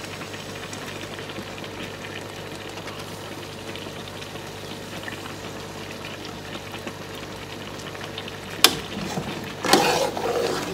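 Pans of food bubbling and boiling on a gas hob, a steady even hiss with a faint hum beneath. Near the end a metal spoon clinks once against the steel pan, then scrapes and stirs through the thick sauce.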